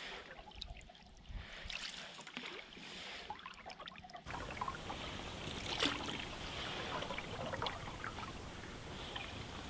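Paddling a cedar strip canoe on calm river water: soft paddle strokes with water trickling and dripping off the blade. About four seconds in, the sound cuts abruptly to a denser, steady hiss of water with scattered small drip-like clicks.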